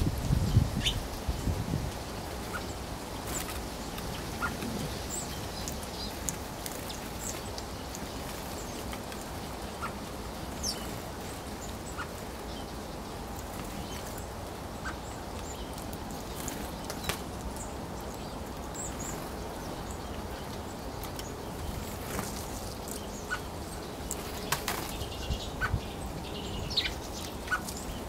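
Short, sharp bird calls scattered over a steady background hiss, with low fluttering thuds in the first couple of seconds and again near the end.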